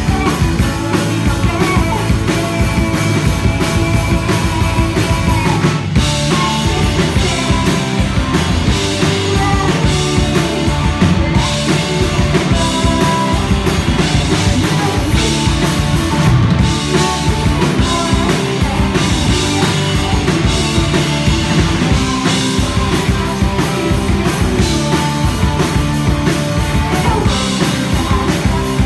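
Live rock band playing loudly, with a full drum kit driving the song; the sound gets brighter about six seconds in.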